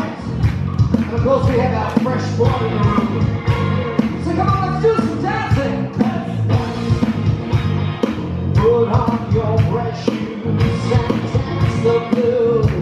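Live rock band playing on a drum kit and electric guitar with a steady beat, a singer's voice over it.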